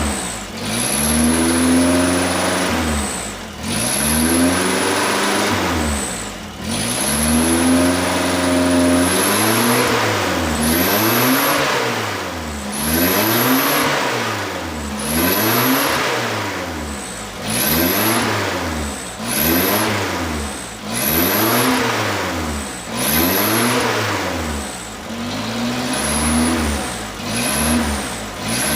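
Petrol Mitsubishi L300 engine being revved over and over, tuned to sound like a Mitsubishi Canter truck. The first few revs are long and held; from about ten seconds in come quicker blips, roughly one every two seconds. A thin high whistle rises with each rev and cuts off as it drops.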